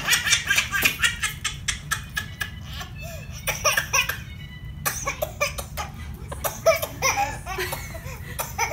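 Baby laughing in quick repeated bursts.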